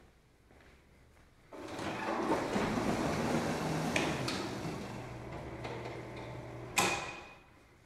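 Garen TSI fast gate motor driving a white aluminium tilt-up garage gate closed: about a second and a half in the motor starts with a sudden rush of mechanical noise and a steady hum, with a couple of clicks midway. Near the end the gate shuts with a sharp, loud bang and a brief ring.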